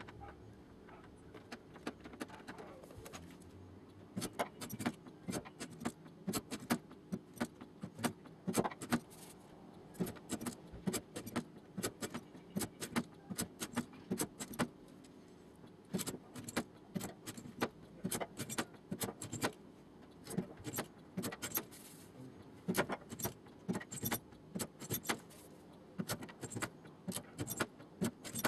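Light hammer taps on the sheet-steel door skin of a car, metal-on-metal clinks coming several a second in irregular runs with short pauses between them: panel beating the door smooth.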